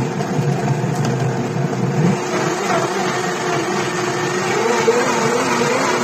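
Blendtec countertop blender running steadily at speed, blending a thick iced drink, its motor pitch wavering a little as the load shifts.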